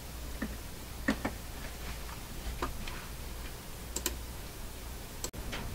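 A few scattered light clicks and taps over a low steady hum.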